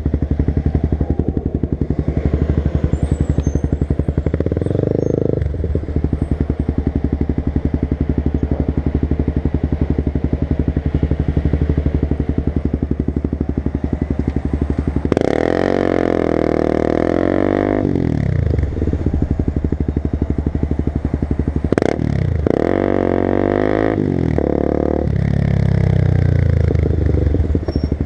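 Sport motorcycle engine running while ridden. The revs rise and fall with the throttle: a short surge about a sixth of the way in, a long louder climb and fall about halfway through, and another near the end.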